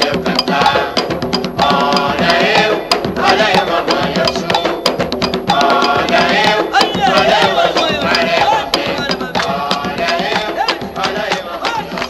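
Umbanda devotional song for the orixá Oxum on a 1976 LP recording: voices singing in phrases over driving hand percussion, with drums and sharp, rapid wood-block-like clicks.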